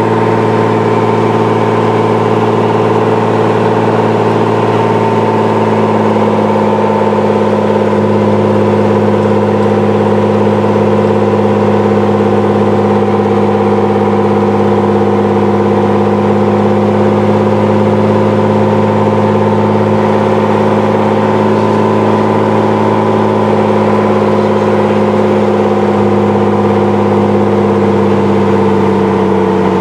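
Single piston engine and propeller of a 1948 Ryan Navion droning steadily, heard inside the cabin on final approach. The pitch eases down slightly twice, about a quarter of the way in and again near the end, as power is reduced for landing.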